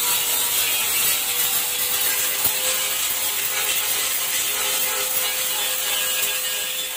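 Small handheld electric grinder with a wire brush running steadily against the inside of a steel scooter fender, a motor whine under a harsh scouring hiss as it strips rust and corrosion. The scouring fades near the end.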